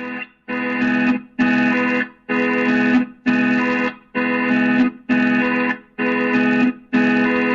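Electronic emergency alert alarm: an organ-like chord of steady tones beeping on and off about once a second, each beep lasting most of a second with short gaps between.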